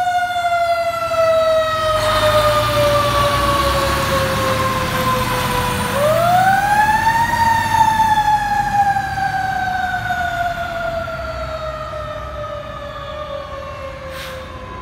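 Siren of a Pierce aerial quint fire truck wailing. Its pitch slowly falls, sweeps back up about six seconds in, then slowly falls again, over the low rumble of the truck's engine. It fades toward the end as the truck drives away.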